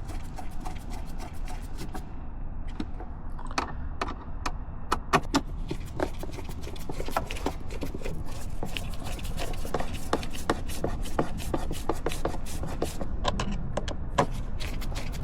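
Irregular clicks and light knocks of parts being handled and fitted by hand, over a steady low rumble.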